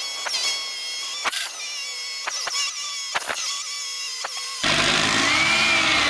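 Bosch rotary hammer drilling through a wall, a high-pitched whine with scattered clicks. About three quarters of the way through, the sound changes abruptly to a louder, fuller steady noise with a wavering tone.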